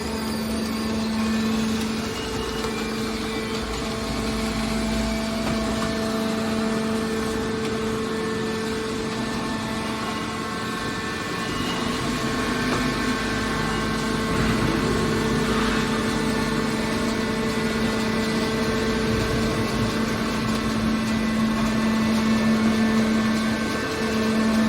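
Hydraulic scrap metal baler running with a steady machine hum, holding one constant pitch.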